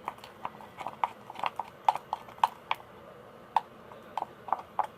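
Homemade slime being worked by hand, giving a run of irregular wet clicks and pops, a few each second.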